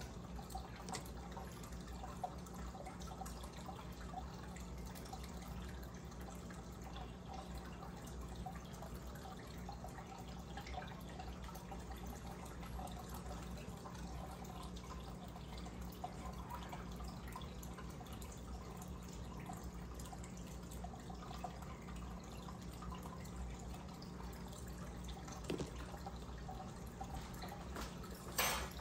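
Aquarium air stone bubbling steadily, a soft trickling and dripping of water over a low steady hum. One short sharp click near the end.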